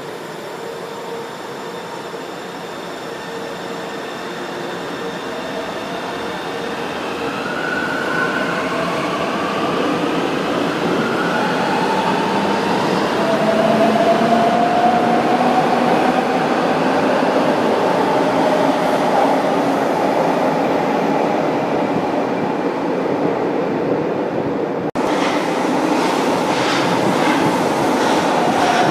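São Paulo Metro Line 1 train pulling out of the station, its traction motors giving a rising whine that climbs in pitch and grows louder as it gathers speed. About 25 seconds in, the sound changes abruptly to a train running past with a quick series of wheel clicks.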